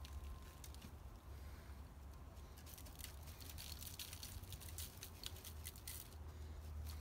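Dry seasoning rub shaken from a plastic shaker jar onto raw chicken thighs: clusters of quick, quiet rattling shakes. A steady low hum runs underneath.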